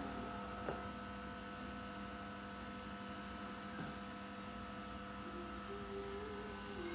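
Steady electrical hum made of several constant tones, with a faint click about a second in.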